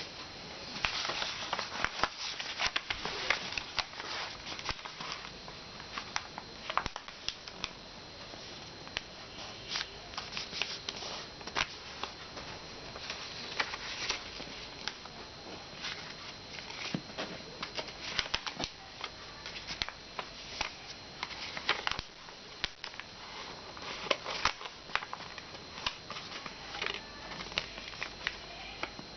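A sheet of paper being folded and creased by hand: irregular crisp rustles, crinkles and snaps of the paper.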